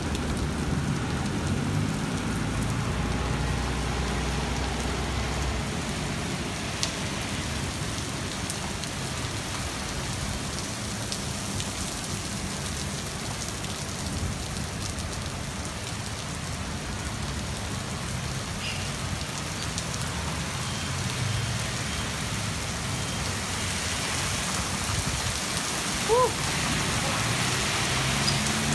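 Heavy rain pouring steadily on pavement. Under it a low vehicle rumble is strongest in the first few seconds, and a brief chirp comes near the end.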